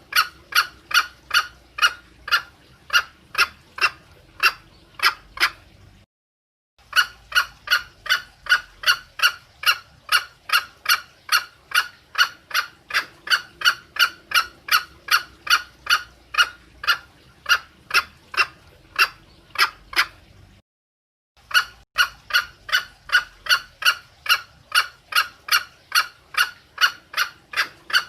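Female green junglefowl giving a rapid, even series of short clucks, about two to three a second: the hen's lure call for a male. The calling cuts out abruptly twice for under a second.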